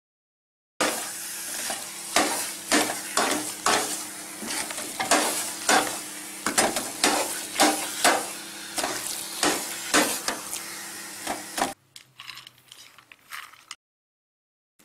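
A metal spoon scrapes and knocks against a steel pan as thick carrot halwa is stirred while it fries, with a steady sizzle underneath. The strokes come about twice a second and stop sharply near the end, leaving a few fainter scrapes.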